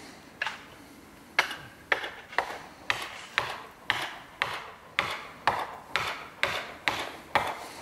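Steady sharp knocks, about two a second, each with a short ringing tail, from a felling tool worked at the base of a tree being felled. They start with one knock, then run evenly from about a second and a half in.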